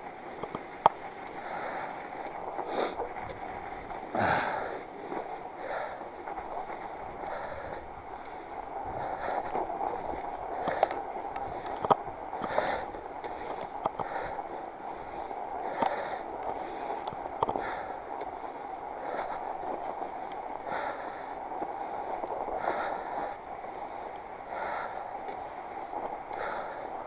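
Northrock XC00 fat bike rolling steadily through loose snow, with the rider's breathing in soft, regular puffs every second or two and an occasional click from the bike.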